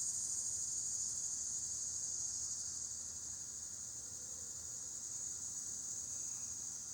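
A chorus of summer cicadas buzzing in one high, constant drone that eases slightly partway through.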